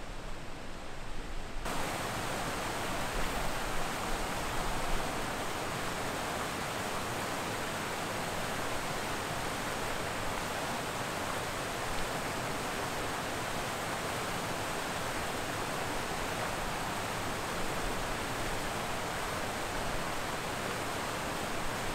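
Water pouring down a stepped concrete dam spillway into the pool below, a steady, even rush that starts about two seconds in.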